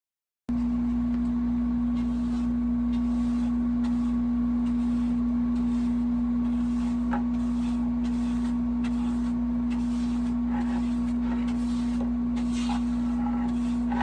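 A steady low hum-like tone that starts abruptly after a moment of silence and holds level throughout, with a fainter higher tone and scattered faint clicks over it.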